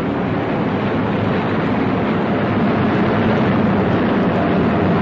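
Steady drone of an Avro Lancaster four-engined bomber's engines in flight, growing slightly louder.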